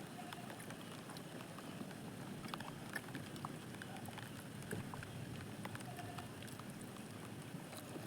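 Quiet eating sounds: faint chewing and small scattered clicks and taps, over a steady low background noise.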